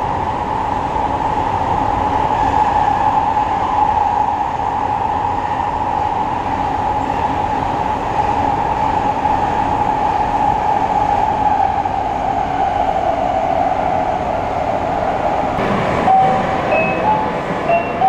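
Running noise heard inside an Osaka Metro 80 series linear-motor subway car (Hitachi IGBT-VVVF) under way: a steady rumble with a hum near 1 kHz that slowly falls in pitch. Near the end come a sharp knock and a few short stepped tones.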